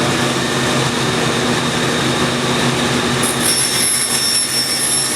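Bandsaw running steadily at full speed, a constant hum with an even rushing noise; a high, steady whine joins about three seconds in.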